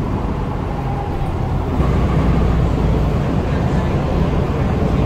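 Inside an airport shuttle bus: a steady low rumble of engine and road noise, getting heavier about two seconds in.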